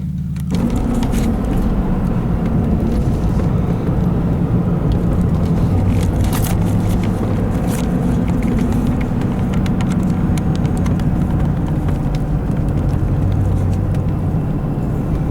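A vehicle driving on the road: steady engine and road noise. About half a second in it becomes louder and rougher, and scattered small clicks and rattles run through it.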